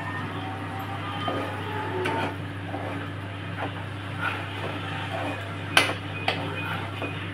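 Metal spoon stirring thick curry in a steel pan, scraping and knocking against the pan, with one sharp clink nearly six seconds in, over a steady low hum.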